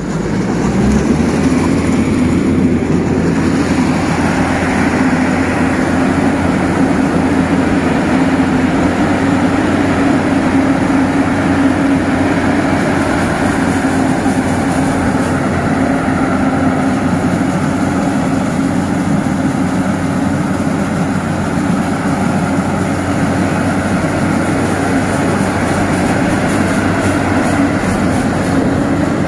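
Yanmar YH8500 rice combine harvester running steadily, a constant engine drone with a low hum.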